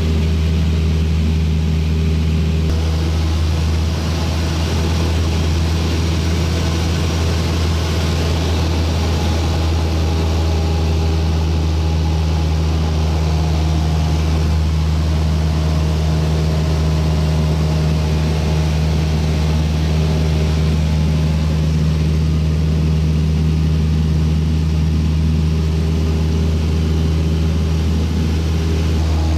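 Cessna light aircraft's piston engine and propeller droning steadily in level flight, heard from inside the cabin.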